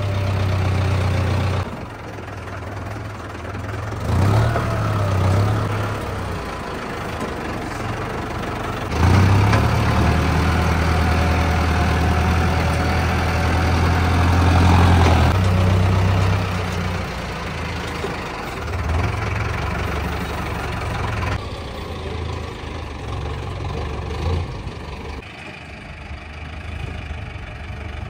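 Heavy diesel engine working, revving up under load in stretches (briefly at the start, again about four seconds in, and longest for about six seconds in the middle) and dropping back toward idle in between and near the end.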